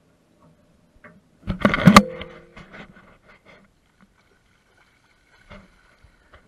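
A loud clatter against the metal jonboat hull about a second and a half in, ringing briefly, followed by a few lighter knocks and splashes from a shark thrashing at the surface beside the boat.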